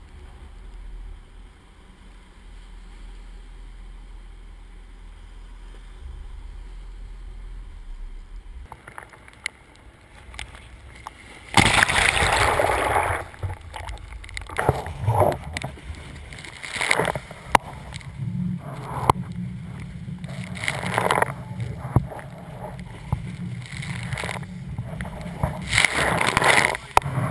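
A quiet, steady low rumble for the first several seconds. Then hurricane storm-surge waves slosh and break over a camera at water level, with loud splashes every few seconds.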